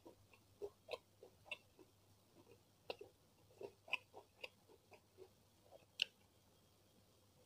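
Quiet, close-miked sounds of eating rice and beef rendang by hand: scattered soft, wet clicks and smacks of the mouth and fingers. A sharper smack about six seconds in comes as a handful goes into the mouth.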